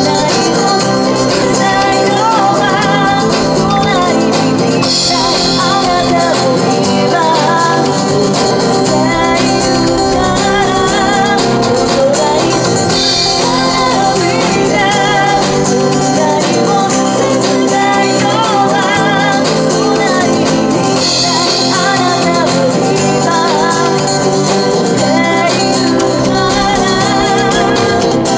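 A live acoustic band: a woman singing the lead vocal over two strummed acoustic guitars, amplified through small stage amps and speakers.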